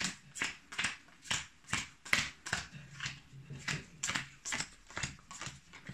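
Joking Hazard playing cards being counted out one by one into hands. Each card gives a short snap, steadily at about two to three a second.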